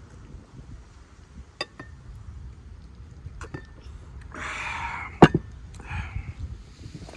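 A heavy glass beer mug set down on a table with a sharp knock about five seconds in, just after a breathy exhale from the drinker. A few small clicks come earlier while the mug is at his lips.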